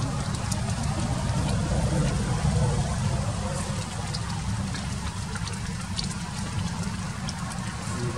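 Steady low rumble of background noise, with a few faint, short high ticks scattered through it.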